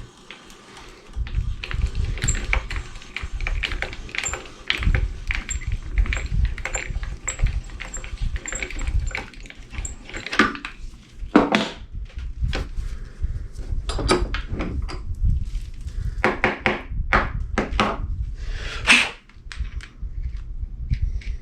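Hand work on old doorknob hardware: an irregular run of clicks, knocks and clinks of metal and glass being handled and worked, over a low rumble. The knocks grow louder and further apart about halfway through.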